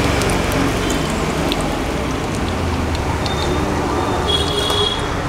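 Food sizzling in a hot pan: a steady hiss with scattered small pops.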